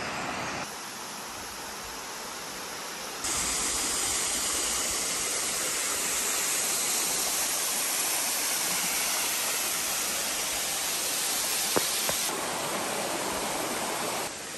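Rushing water of a mountain river and waterfall: a steady hiss of falling and flowing water that jumps louder about three seconds in and drops back near the end.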